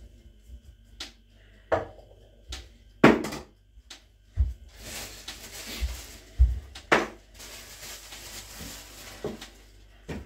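Kitchen clatter of dishes, pans and utensils being handled and put away: a series of separate knocks and clinks, with a short rushing noise about five seconds in.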